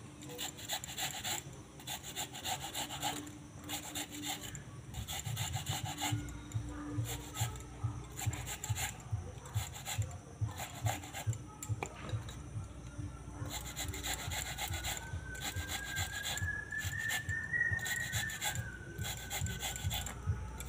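Wax apples being grated by hand on a metal grater: a steady series of wet rasping strokes as the fruit is rubbed down over the blades.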